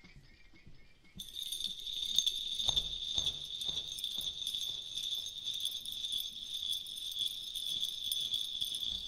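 Background music: soft, even ticking, then from about a second in a steady shaking of jingle bells over a regular beat.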